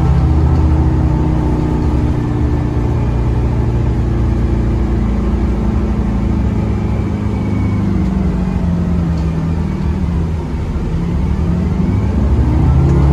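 Cabin sound of a Grande West Vicinity CNG bus under way: its Cummins B6.7N natural-gas engine running steadily with road rumble, the engine note easing off about ten seconds in, then climbing again as the bus accelerates near the end.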